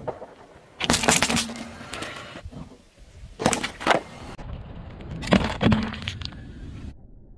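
Small plastic food containers cracking and bursting under a car tyre rolling over them on asphalt. Three separate crushes, about a second in, midway, and near the end, each a quick run of sharp snaps and crackling.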